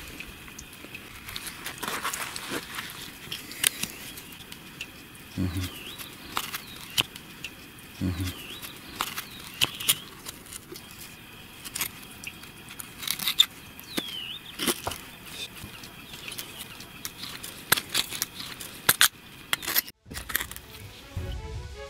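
Hands handling a wet, muddy WWII Wehrmacht leather belt with a steel buckle just pulled from the soil: scattered sharp clicks and scrapes of leather, metal and dirt, with two dull thumps about five and eight seconds in.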